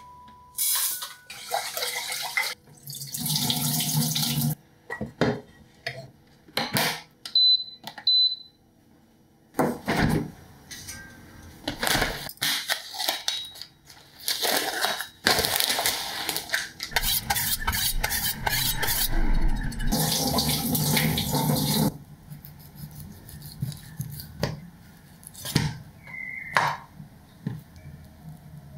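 Kitchen food-prep sounds: dry rice scooped from a bag, water running in stretches, and dish and utensil clatter, with two short high beeps about eight seconds in. Near the end it turns quieter, with a knife slitting a chicken tray's plastic film and cutting on a wooden board.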